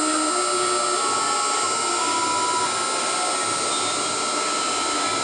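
CNC router running: the spindle whines at a steady pitch over a steady whir, while the axis stepper motors sing at pitches that jump up and down every second or so as the engraving bit moves across the board. The bit has stopped marking the board, which the operators take to be out of level and lifting.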